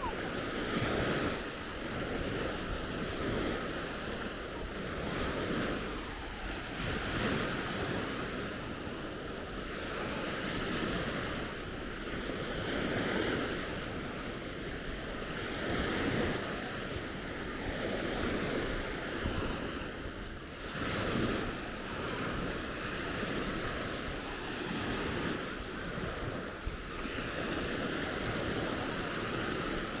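Baltic Sea surf washing onto a sandy beach, a steady rush that swells and fades in irregular surges, with wind buffeting the microphone.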